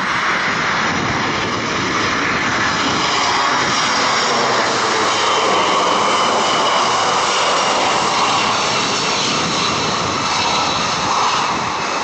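United Airlines Boeing 767-300ER on landing approach with gear down, its Pratt & Whitney PW4060 turbofans making a steady, loud jet rush with a faint high fan whine over it as it passes close overhead.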